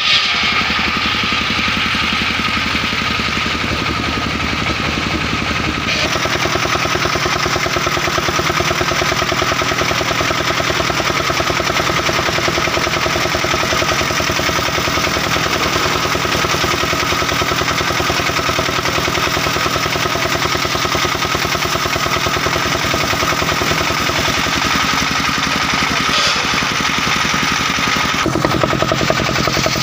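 Engine-driven portable circular sawmill running hard with a fast, steady pulsing, its blade sawing through a mahogany log. The sound changes about six seconds in and again near the end.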